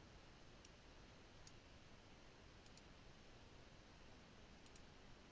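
Faint computer mouse clicks over low hiss: a few single clicks, then quick pairs like double-clicks.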